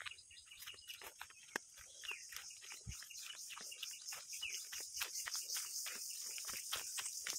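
Steady high-pitched chorus of insects, with irregular crackling and snapping of footsteps and legs brushing through undergrowth on a forest path.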